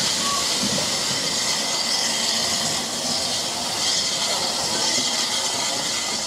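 Steady, loud hiss of steam escaping from standing steam locomotives.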